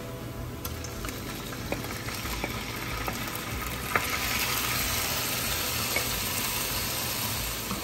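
Cubes of pressure-cooked beef sizzling in hot oil as they are tipped into a frying pan of onion and stirred with a wooden spatula; the sizzle swells about four seconds in. A few light knocks of the spatula and glass bowl against the pan.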